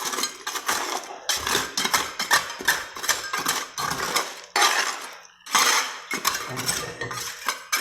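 Metal tools chipping and scraping at concrete around a buried water pipe being dug out to find a leak: a run of irregular knocks and scrapes, with a brief pause about five seconds in.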